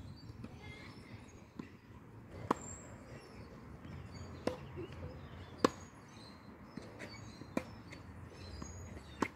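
Tennis ball being struck by rackets and bouncing on a hard court in a rally: sharp pops every second or two, five of them louder, with birds chirping faintly.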